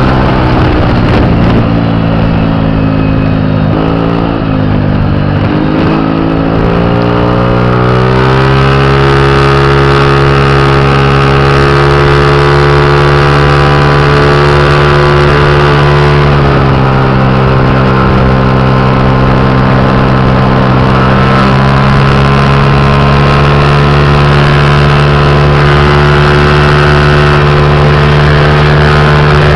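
Small scooter engine under hard acceleration: the revs climb over the first several seconds with a brief dip about four seconds in, then hold nearly steady and high at full throttle, dipping slightly once around halfway before settling again.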